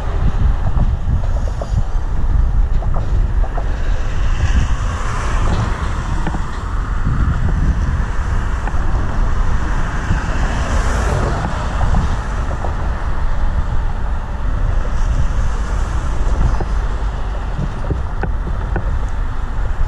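Wind buffeting the microphone over the low rumble of a slow freight train's cars rolling past.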